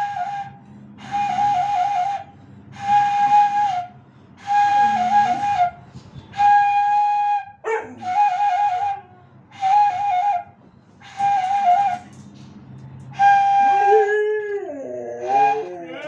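Bansuri bamboo flute playing about nine short notes of roughly a second each, some held steady and some trilled. A dog howls along, most clearly in a long wavering howl near the end.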